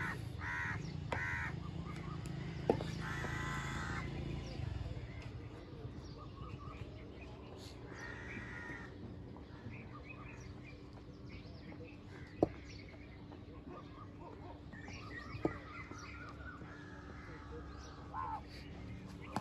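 Crows cawing on and off, with three sharp knocks, about three seconds in, about twelve seconds in and a few seconds later.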